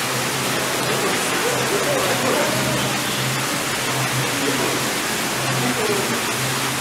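A steady rushing noise, like water or air, with faint distant voices and a low hum that comes and goes.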